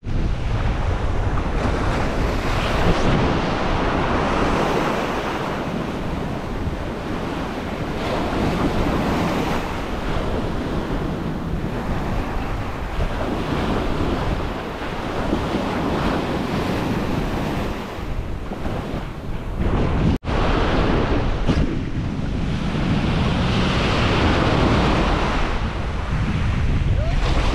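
Small waves breaking and washing up a sandy beach, the surf swelling and easing every few seconds, with wind buffeting the microphone.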